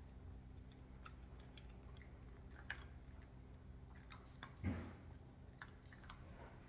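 Cats crunching dry kibble from metal bowls: faint, scattered crunches, with one louder thump about two-thirds of the way through.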